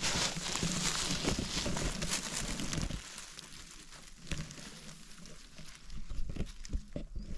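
Dense rustling of undergrowth for about the first three seconds, then quieter, scattered footsteps with small cracks of twigs and litter on the forest floor.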